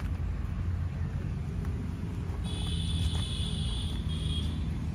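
Diesel tractor engine running steadily with a low rumble. About halfway through, a steady high tone sounds for roughly two seconds, with a brief break.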